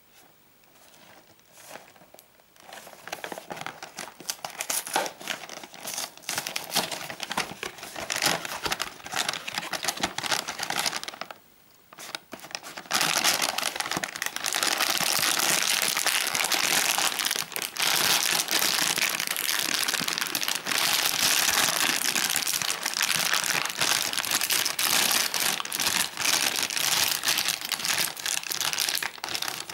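A cardboard cereal box being handled and its flaps opened, with scattered crackles. After a short pause about twelve seconds in, the plastic inner bag crinkles loudly and continuously as it is pulled and torn open.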